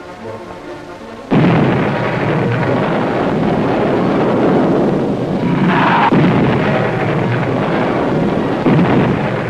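Steady jet engine roar of a US Air Force F-100 Super Sabre in flight, cutting in suddenly about a second in after a few moments of music.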